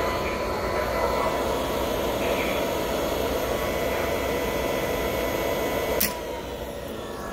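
Electric floor burnisher motor running with a steady whir and a high whine. About six seconds in a sharp click cuts it off, and it winds down with a falling whine.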